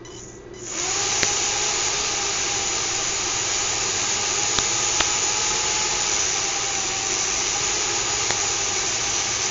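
Small fischertechnik electric motor starting with a click and then running steadily, a loud even whir with a faint whine over it.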